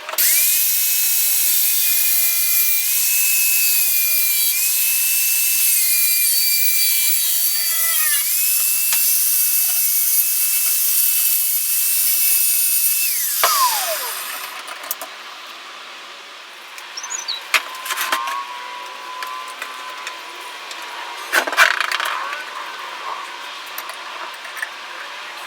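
An electric power saw runs with a steady high whine, dipping in pitch about eight seconds in as it loads up cutting wood. About halfway through it is switched off and winds down. After that come quieter knocks and scraping from handling the workpiece.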